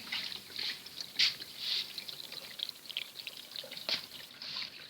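Water trickling and pouring out of a twin-tub washing machine's wash tub through its just-repaired drain valve, opened to test that the water drains. Two sharp knocks, about a second in and near the end.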